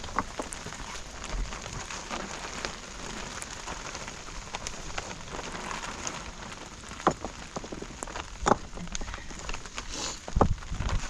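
Steady rain falling, with scattered louder drops ticking on a surface and a few low thumps near the end.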